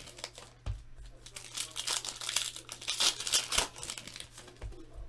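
Shiny foil wrappers of Panini Contenders football card packs being torn open and crinkled by hand, in repeated bursts of crackling. There is a low thump about a second in and two more near the end.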